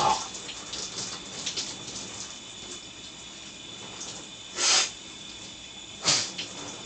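Shower water running steadily, with two short loud burps, one a little past halfway and one near the end, each louder than the running water.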